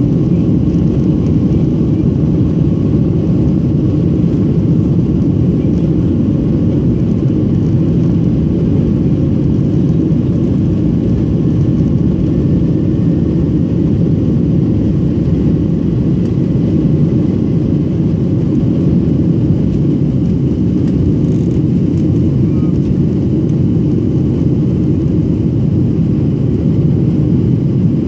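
Cabin noise of a Boeing 737-700 during its takeoff roll and climb-out: the CFM56-7B turbofans at takeoff thrust give a loud, steady, deep rumble.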